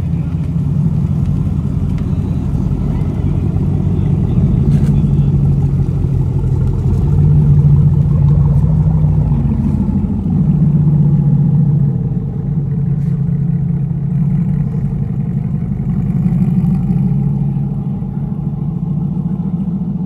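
Low V8 exhaust rumble of cars pulling slowly out one after another, a Dodge Challenger and then C8 Corvettes, swelling several times as each one passes and rises in pitch on light throttle.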